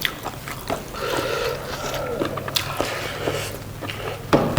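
Close-miked eating sounds: chewing and wet mouth noises from buffalo innards, with small clicks throughout and one louder knock near the end.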